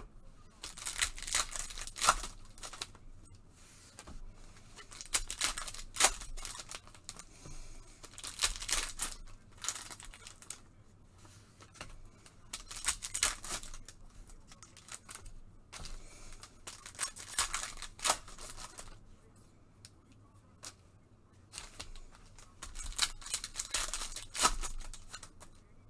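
2020 Prizm Football retail trading-card packs being torn open, their plastic wrappers tearing and crinkling in short bursts a few seconds apart, with quieter handling of cards between.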